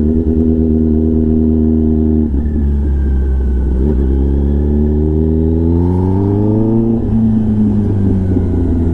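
Kawasaki ZX-10R inline-four with an SC-Project titanium exhaust, running under way. The engine holds a steady note, its revs drop suddenly about two seconds in, climb smoothly for about three seconds, then drop sharply again near the seven-second mark and settle.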